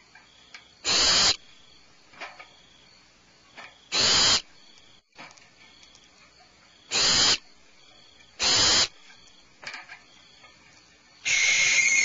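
Barn owl giving harsh hissing calls: four short bursts a few seconds apart, then a longer one with a whistling edge near the end.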